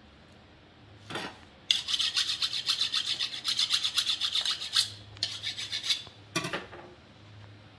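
Rasping scrapes: one about a second in, then a rapid run of strokes lasting about three seconds, a shorter run, and a last single scrape.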